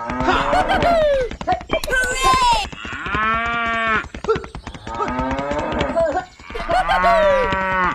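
Cattle mooing: about five moos one after another, one of them long and drawn out.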